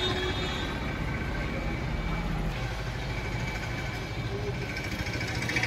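Steady low rumble of a vehicle engine running in the background, with no distinct knocks or clicks.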